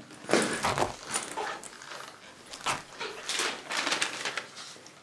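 A man whimpering and sobbing in irregular breathy bursts, with rustling as he handles his bag.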